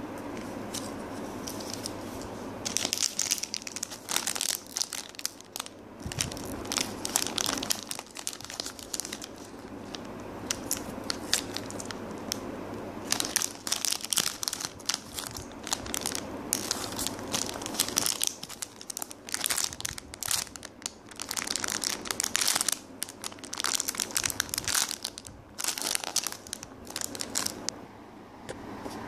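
Plastic packaging being crinkled and crumpled by hand in irregular bursts, with short pauses between handlings.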